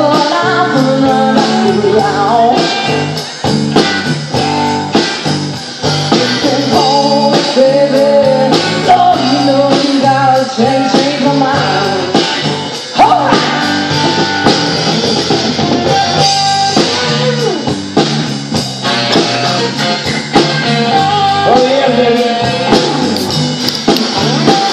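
Live blues band playing at full volume: electric guitar and drum kit.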